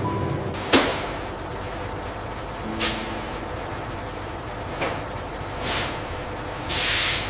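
Factory machinery running with a steady hum, struck by a few sharp knocks and short hisses of released compressed air, the longest hiss near the end.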